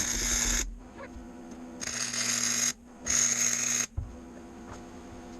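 Electric welder laying short tack welds on steel: three bursts of crackling hiss, each about a second or less, that start and stop abruptly, the first already going at the start. A low hum runs under each burst.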